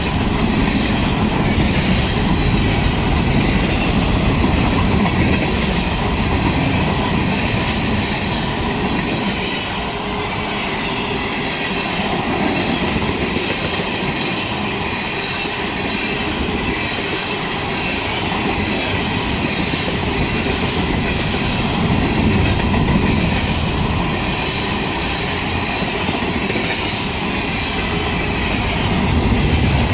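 Freight train rolling past on the rails: a steady, loud rumble and clatter of the wheels and cars.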